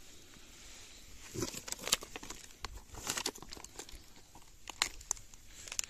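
Irregular rustling and small crackles, with a few sharper snaps, from movement over a mossy forest floor strewn with dry twigs.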